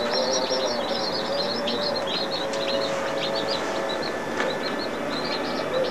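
Newly hatched chicks peeping rapidly, many short falling peeps overlapping, over a steady mechanical hum from the incubator.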